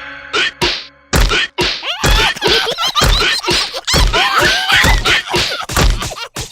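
Cartoon slapstick sound effects: a run of whacks and deep thuds about once a second, mixed with the characters' squeaky, wordless cries.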